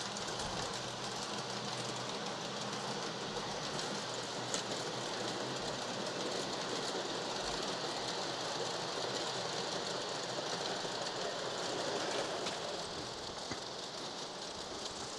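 Several LGB G-scale model trains running at once on the garden layout's brass track: a steady rolling whir, with a few light clicks.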